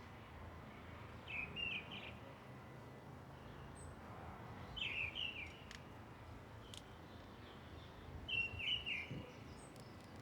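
A songbird singing the same short chirping phrase three times, a few seconds apart, over a steady low background rumble of park ambience.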